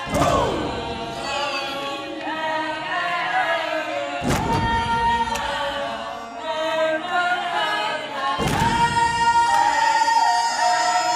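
A group of voices singing and chanting together over music, with a deep thud about every four seconds. Near the end a high note is held for a few seconds.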